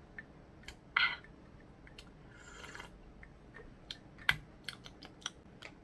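Snack packaging being handled: a short crinkle about a second in, a brief rustle, then a run of sharp clicks and taps, the loudest about four seconds in.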